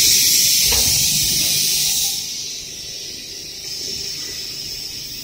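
Loud hiss of a pressurised jet released on a rebonded foam making machine, cutting in sharply as it is opened. It eases after about two seconds and keeps going. There is a low thump about a second in.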